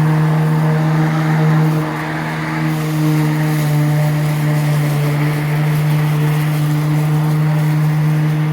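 Ryobi 18V 13-inch cordless electric push mower running and cutting grass: a steady motor-and-blade hum that dips briefly about two seconds in, then recovers.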